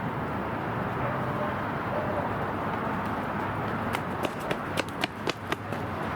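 Steady outdoor background noise, with a quick, uneven run of sharp clicks about four seconds in.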